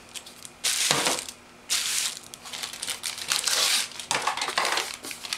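Plastic packaging being handled and crinkled in several irregular bursts, with a short pause about a second in.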